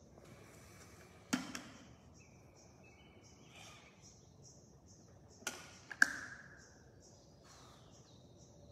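Plastic flip lid of a shaker bottle clicking open a little after the start, then snapping shut with two sharp clicks about five and a half to six seconds in, the second the loudest sound. Behind it, a bird chirps high about twice a second.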